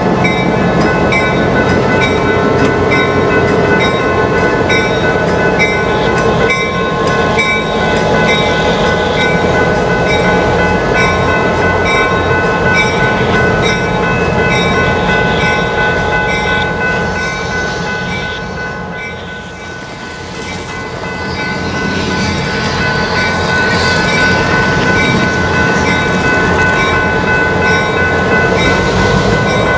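Diesel freight locomotives moving slowly with their engines running, and the locomotive bell ringing steadily at a little over one stroke a second. The sound dips briefly past the middle, then comes back up.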